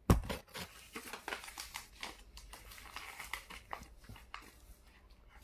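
A sheet of A4 paper being folded and creased by hand, in many small, irregular rustles and scratches. A loud thump comes right at the start.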